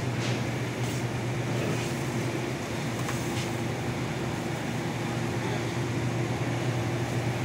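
Steady low hum and rumble from supermarket drink coolers and air handling, with a shopping cart rolling over a tiled floor and a few faint rattles.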